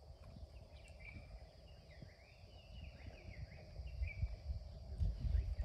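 Wild birds chirping and calling, with short gliding notes, over a steady low rumble that grows louder about four seconds in.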